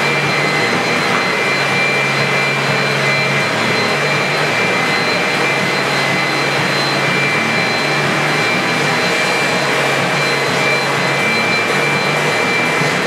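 Leaf blower running steadily at full speed: a loud rush of air with a steady high-pitched fan whine on top.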